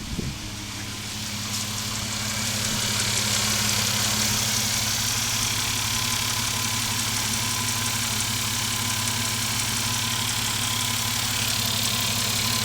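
Mitsubishi 3000GT's SOHC V6 idling with a steady low hum, while a hissing noise builds over the first two or three seconds and then holds steady along with a faint steady whine. This is the odd noise the owner asks about, which he says comes on when the car is put in drive.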